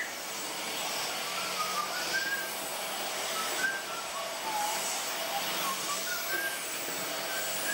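Cordless handheld stick vacuum running steadily while sucking up spilled shredded coconut from the floor, a constant motor hiss. Faint, wandering whistle-like tones sit over it.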